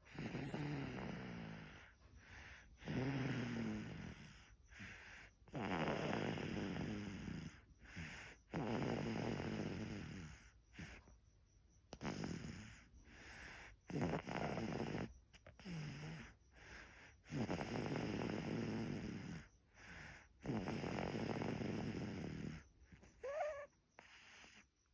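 A sleeping baby snoring: loud, raspy snores with each breath, about every two to three seconds. A brief rising squeak comes near the end.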